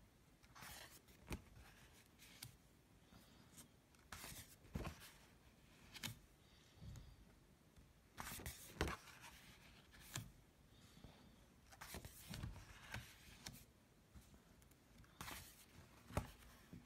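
Faint drawing on paper with pencil, conté crayon and charcoal: irregular scratching and rubbing strokes of varying length, with a few short sharp ticks among them.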